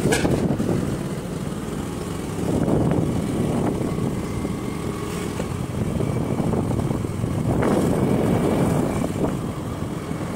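A vehicle on the move: steady low engine and road noise that swells and eases a little.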